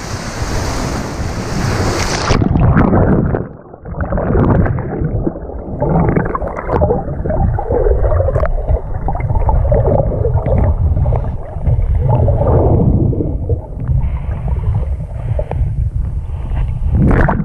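Surf washing and wind on the microphone, then about two seconds in the sound turns muffled as the camera goes under the water: low sloshing and churning of the shallow surf heard underwater. The full sound returns briefly near the end as the camera breaks the surface.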